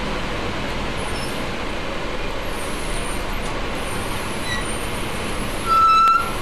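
Steady running noise of a bus idling in the terminus. About five and a half seconds in comes a short, loud, high-pitched beep lasting about half a second.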